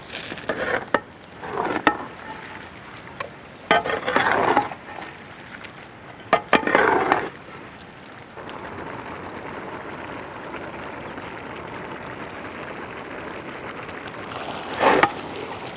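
Chicken stirred and scraped in a pan of hot oil: four or five short scraping strokes with a few clicks of the spoon in the first half, then a steady sizzle of the chicken frying and one more stir near the end.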